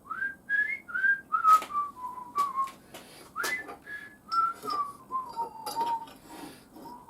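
A man whistling a tune, one clear note at a time in a stepping melody, with a few sharp metallic clinks between the notes.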